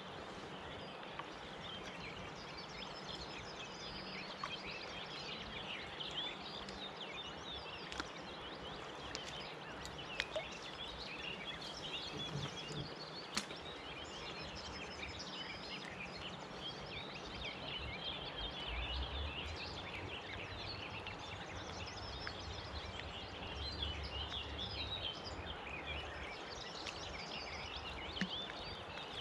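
Riverbank ambience: many small birds chirping and singing over a steady hiss of flowing river water, with a few faint clicks.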